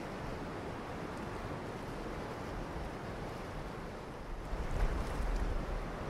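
Fast river at high water, a steady rush of water. From about four and a half seconds in, gusts of wind buffet the microphone in low rumbling bumps.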